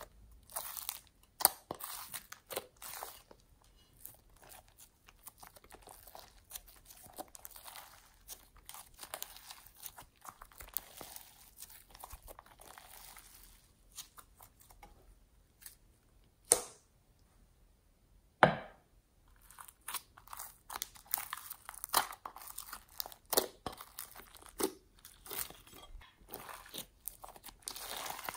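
Sticky slime being peeled, pulled and stretched by hand: runs of wet crackling, squishing and tearing, with two louder pops a little past the middle.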